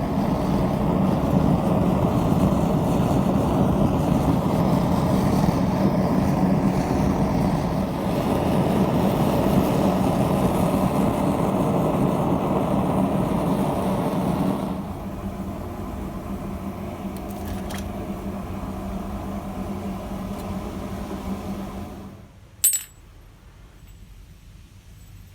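Belt sander running, grinding a steel hammer head: a steady grinding noise over a motor hum. It drops in level about fifteen seconds in, stops about seven seconds later, and a single sharp click follows shortly after.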